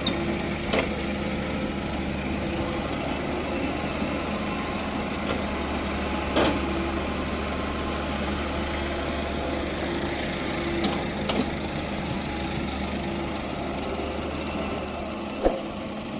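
Diesel engines of a Doosan DX140W wheeled excavator and a farm tractor running steadily while the excavator loads soil into the tractor's trolley, with a few sharp knocks, the loudest near the end.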